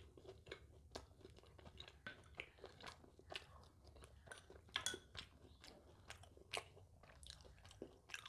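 Faint close-up chewing of crisp fried kochuri: irregular soft crunches and wet mouth clicks, with a couple of louder crunches about halfway through.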